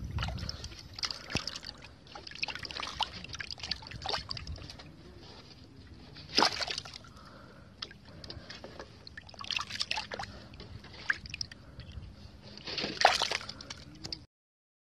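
Water sloshing and splashing in a bucket of caught fish as a hand moves through it. There are irregular splashes, with the biggest about six seconds in and near the end.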